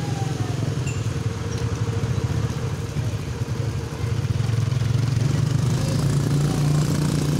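A vehicle engine running steadily, a low rumble that grows a little louder about four seconds in.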